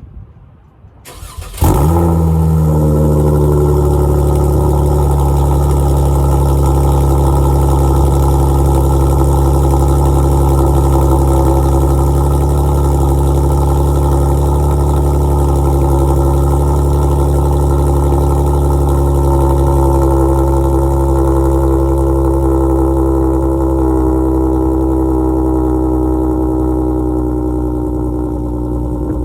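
Dodge Challenger V6 cold start through aFe catless downpipes: a brief crank, then the engine fires loudly about two seconds in and settles into a steady fast idle, easing slightly near the end.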